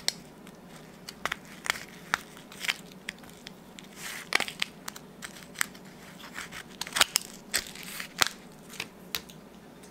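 Thin aluminium foil pie pan crinkling and crackling as its cut side is bent down by hand, in irregular sharp crackles, loudest about four and seven seconds in.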